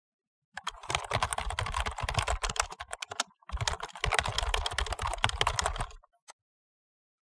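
Fast typing on a computer keyboard: two quick runs of keystrokes with a short pause between them, then a single keystroke near the end.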